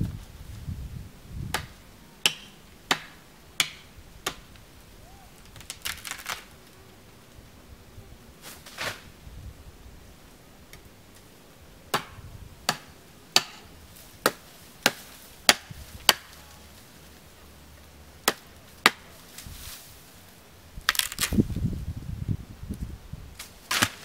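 Machete chopping bamboo: a string of sharp, separate strikes at an irregular pace, often less than a second apart. A short stretch of rustling comes near the end.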